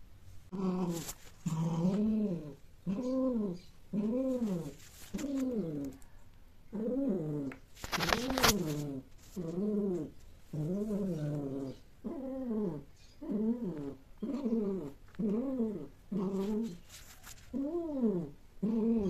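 Domestic cat yowling in a long series of drawn-out calls, each rising then falling in pitch, about one a second, with one louder, harsher call about eight seconds in. These are the mating calls of a cat in heat.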